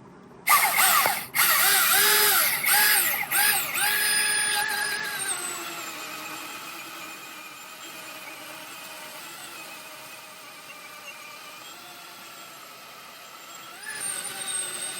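Milwaukee M18 FUEL 20-inch dual-battery cordless chainsaw starting about half a second in and cutting a log. Its motor whine dips briefly and recovers several times as the chain takes the load, then runs quieter and steadier, and rises again near the end.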